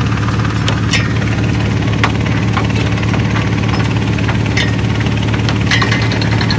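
Bore well drilling rig's engine running steadily, with occasional sharp knocks.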